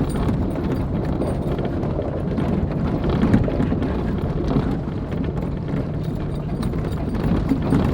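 Jeep driving slowly over a rough dirt trail: a steady low rumble of engine and tyres, with irregular small knocks and rattles as it rolls over bumps.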